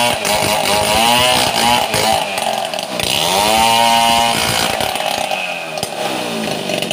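Two-stroke chainsaw ripping a waru log lengthwise, its engine pitch rising and falling with the throttle. A little past halfway the revs drop and it runs quieter as the cut comes through.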